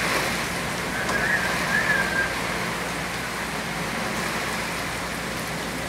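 Heavy rain falling steadily on dense trees and foliage, a constant hiss. About a second in, a brief faint wavering high tone sounds over it for a little over a second.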